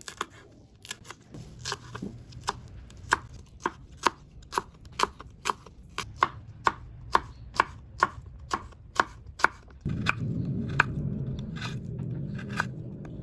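Knife chopping food on a cutting board in a steady rhythm of about two sharp strokes a second. Near the end the chopping thins out, and a steady low rushing noise starts up under it.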